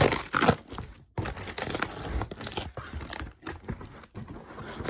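Packaging being crumpled and torn while being pulled off a new skateboard deck: a dense crackling crinkle, loudest at the start, with a short pause about a second in.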